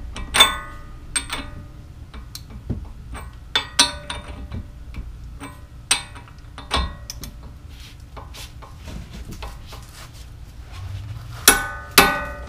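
Metal hand tools and parts clinking and tapping at irregular intervals, a few strikes ringing, with two louder ringing clanks near the end, as the new axle nut is fitted on the front hub.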